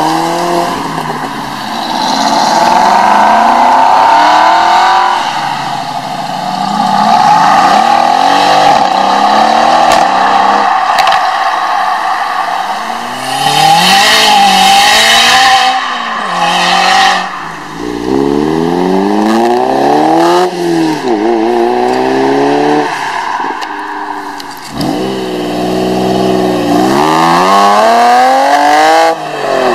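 Sports car engines, among them an Aston Martin Vantage, a Honda Civic Type R and a first-generation Honda NSX, accelerating hard away one after another. Revs climb and fall back at each gear change, over and over, with a loud hissing rush about halfway through.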